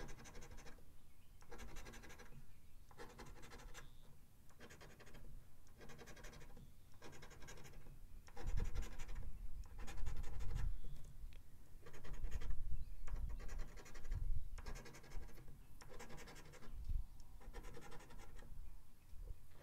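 A coin scraping the coating off a paper lottery scratch-off ticket in short, repeated strokes. There are low rumbling swells partway through.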